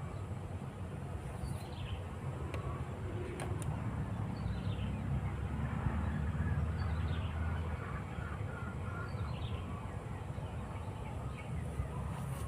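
A bird calling over and over, a short falling note every second or two, over a steady low rumble like distant traffic that swells about halfway through.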